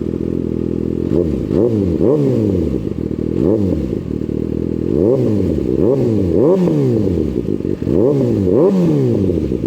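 Kawasaki ZX-6R 636 inline-four, warmed up and fitted with an M4 slip-on exhaust, idling and then revved in a string of quick throttle blips. Each rev rises and falls straight back to idle, and they come in small groups.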